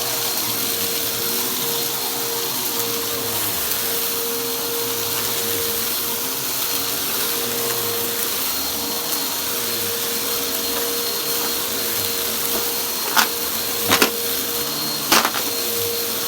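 Vacuum cleaner running steadily, with a constant motor whine over its rushing air. A few sharp clicks near the end, like small hard bits striking the nozzle or hose.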